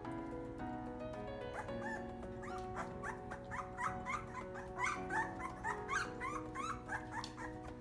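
A litter of young doodle puppies crying, with many short high whines overlapping, several a second and busiest in the second half. Background music with steady held notes plays underneath.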